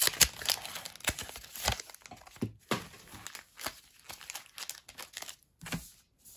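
Foil booster-pack wrappers and plastic pack sleeves crinkling as they are handled and shifted, a dense run of crackles for the first few seconds that then thins to scattered rustles.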